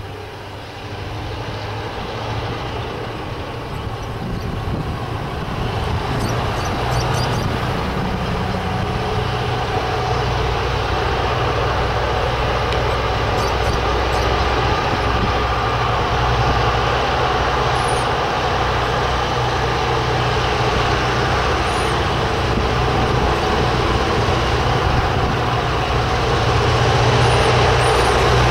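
Three diesel-electric locomotives, X class X44 leading with P class P20 and P22, working at high power to restart a heavy freight train on a 1 in 78 grade. Their deep, steady engine drone grows louder over the first several seconds as they approach, and swells again near the end.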